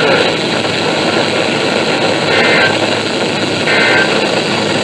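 Weather radio receiver hissing with loud static, with three short warbling data bursts about a second apart near the end: the end-of-message tones that close a NOAA Weather Radio alert broadcast.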